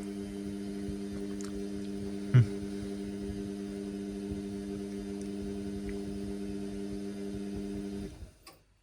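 Indesit washing machine running mid-wash with a steady electric hum and one short knock about two seconds in. The hum cuts off suddenly near the end.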